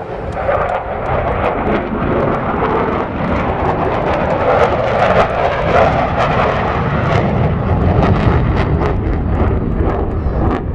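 Airplane flying overhead, a loud, dense engine noise that swells about half a second in and stays strong throughout.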